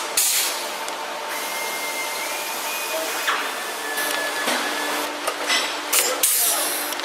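Pneumatic blind-rivet pullers setting rivets in an aluminium wing skin: several short bursts of air hiss, one near the start, one about three seconds in and a quick cluster near the end, over a steady workshop hiss.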